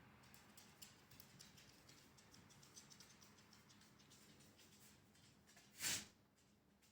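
Near silence: quiet room tone with faint scattered ticks, and one short whoosh of noise about six seconds in.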